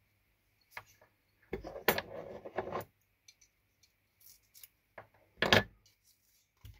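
Small fly-tying tools and materials being handled on the bench: a few separate clinks and rustles, loudest about two seconds in and again about five and a half seconds in.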